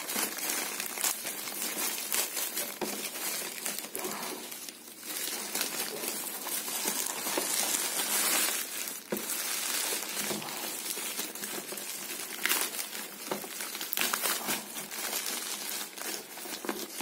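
Plastic courier mailer bag crinkling and tearing as it is pulled open by hand, with bubble-wrap packing rustling. Continuous crackling with a brief lull about five seconds in.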